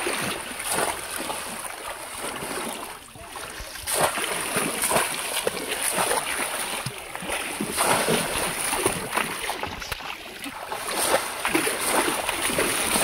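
Repeated water splashing as a bamboo polo fish trap is thrust down into shallow river water and a man wades through it. The splashes come in irregular surges, roughly one a second.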